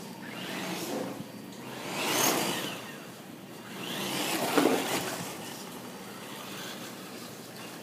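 Drive motor and tyres of a radio-controlled truck passing by on a tiled floor, swelling and fading twice, loudest about two seconds in and again about four and a half seconds in, the pitch sweeping up and then down with each pass.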